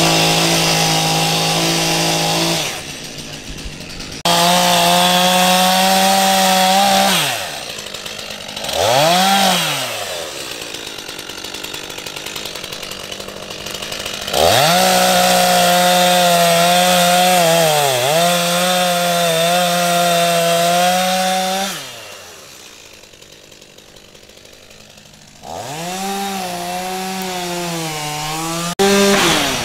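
Two-stroke gasoline chainsaw cutting up fallen tree limbs. It revs to full throttle in about five long bursts of a few seconds each, dropping back to idle between cuts. In one cut its pitch sags briefly as the chain bites into the wood.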